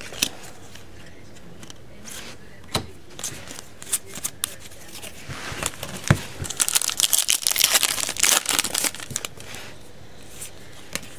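A few sharp taps of trading cards on a tabletop, then from about halfway through a stretch of crinkling and tearing as a foil trading-card pack wrapper is ripped open, the loudest part.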